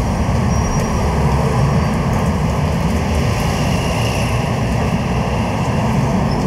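Steady low rumble of motor-vehicle engine noise.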